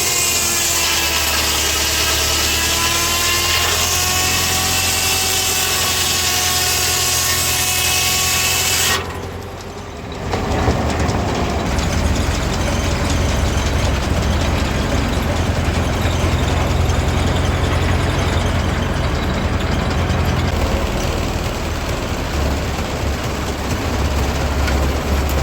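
Old engine-driven machinery running: a high whine with a slowly wavering pitch over a low engine drone, which cuts off abruptly about nine seconds in. Then an engine runs on its own with a steady low rumble.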